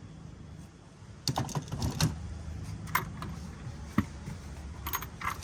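Scattered light clicks and knocks as the intake manifold of a GM 4.3 V6 is worked loose and lifted off the engine, starting about a second in.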